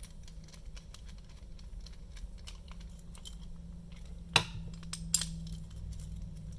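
Small metal padlock parts being handled and fitted back together: light clicks and taps throughout, with a sharp metallic click about four seconds in and another just under a second later. A low steady hum runs underneath.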